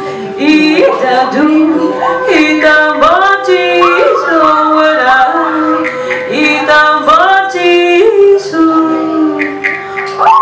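A woman singing a wordless, chant-like song into a microphone. Many notes start with a quick upward slide, and a second note is held steady beneath her line through much of it.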